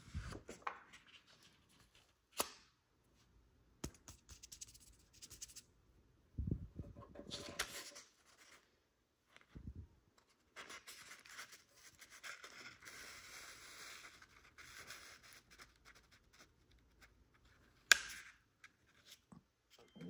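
A sheet of origami paper being handled, folded and creased by hand: irregular spells of rustling and crinkling with quiet gaps, and a few sharp snaps, the loudest near the end.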